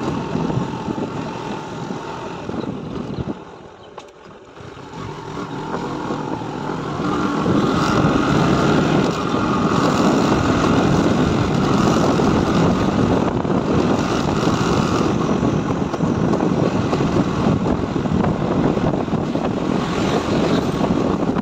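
Motorcycle being ridden: a steady engine and road noise drone that dips briefly about four seconds in, then grows louder from about seven seconds on.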